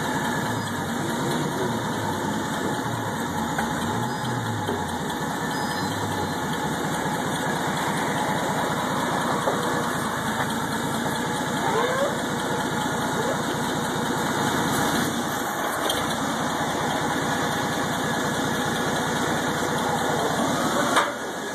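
Clark forklift's engine running steadily, with its low pitch wavering up and down over the first few seconds.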